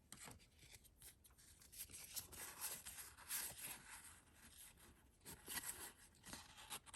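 Faint rustling and sliding of Pokémon trading cards being handled and shuffled through by hand, with short scratchy strokes as cards slide over one another.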